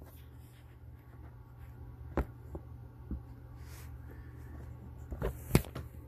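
Faint handling and rustling with a few sharp clicks and knocks, one about two seconds in and the loudest a little after five seconds, over a steady low hum.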